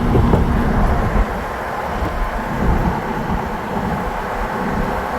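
Breeze buffeting the microphone in a low, uneven rumble, over water by the dock.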